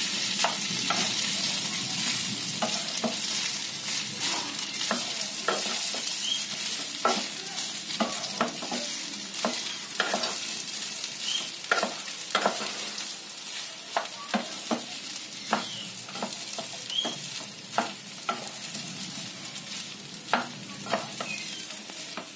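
Boiled basmati rice being stirred into tomato masala in a frying pan: a steady sizzle with irregular scrapes and taps of the spatula against the pan. The sizzle dies down toward the end.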